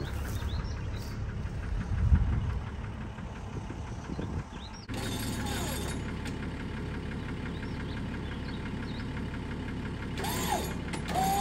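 An engine idling steadily, with a single heavy thump about two seconds in.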